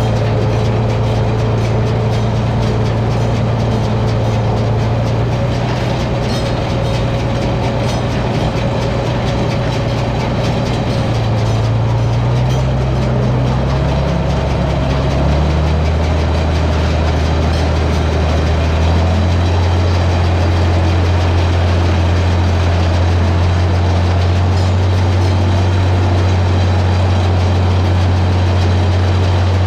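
International 1256 tractor's diesel engine running steadily as it pulls a round baler; about halfway through, the engine's hum shifts lower in pitch and gets a little louder, as engine speed or load changes.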